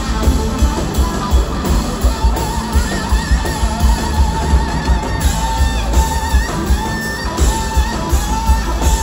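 Live rock band with a lead electric guitar playing a melody of bent, gliding notes over a pounding kick drum and bass.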